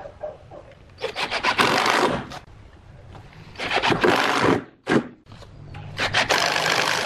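Makita cordless impact driver driving screws through steel corner brackets into a pine bed frame, in three main bursts of a second or so each and a short blip between them, each burst a dense rattling of the driver's hammer as the screw bites into the wood.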